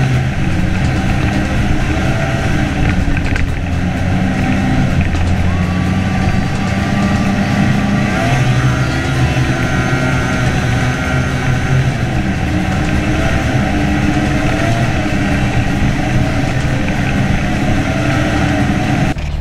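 Snowmobile engine running steadily at speed across snow, its pitch shifting a few times.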